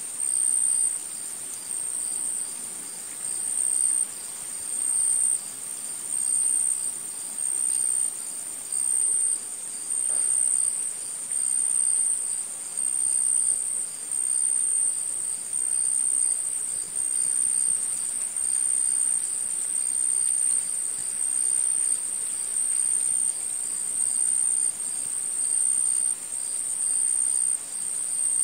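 A high-pitched insect trill, steady and unbroken, that swells louder in regular pulses a little less than once a second.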